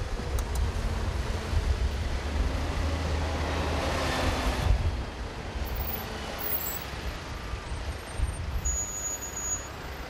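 Van engine running close by amid road traffic, with a low rumble underneath. A hissing swell builds to about four and a half seconds in, then cuts off suddenly.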